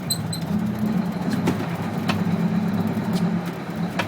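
Boat engine idling steadily, a low even hum. Two short high beeps sound just after the start, and a few sharp clicks come later.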